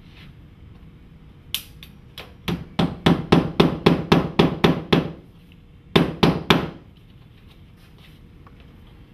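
Hammer nailing the top edge of a faux-stone cladding panel: two single blows, then a quick run of about a dozen blows at roughly four a second, a short pause, and three more blows.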